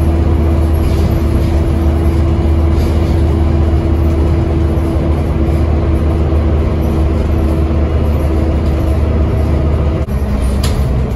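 Scania N270UD double-decker bus's 9-litre five-cylinder diesel cruising at speed, heard inside the saloon: a steady low engine drone with a steady whine over road noise. About ten seconds in the sound briefly dips and the whine stops at a cut, followed by a short click.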